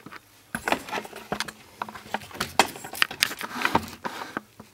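Irregular light clicks and rattles of hands handling things on the workbench, coming in quick clusters with short pauses between them.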